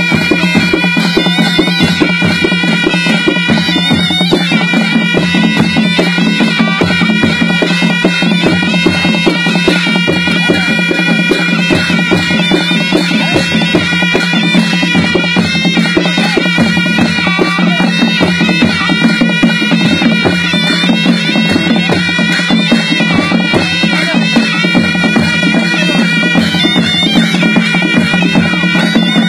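Nepali panche baja folk ensemble playing: nasal, reedy shehnai melody over held tones, driven by a steady beat on the damaha, tyamko and dholaki drums with clashing jhyali cymbals.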